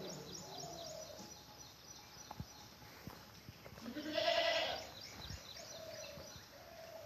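Goats bleating: one loud, drawn-out bleat about four seconds in, with fainter bleats near the start and near the end. Birds chirp faintly in the background.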